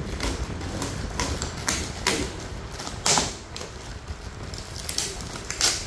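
Plastic stretch wrap around a cardboard box being poked, scratched and torn with a pencil and fingers: irregular crinkling and scraping with sharp clicks and knocks, the loudest about two, three and five and a half seconds in.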